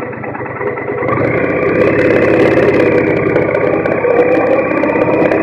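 2017 Triumph Bonneville T100's 900 cc parallel-twin engine running as the motorcycle rides along, steady exhaust pulses that get louder about a second in.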